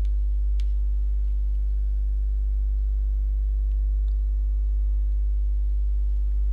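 Steady low electrical hum with a few faint steady tones above it, and two faint clicks, one about half a second in and one about four seconds in.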